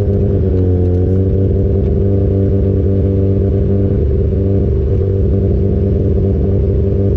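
Mazda 13B two-rotor rotary engine of a sandrail running under way at steady revs, its pitch dipping slightly about a second in and then holding level. The engine has low compression and cannot rev high.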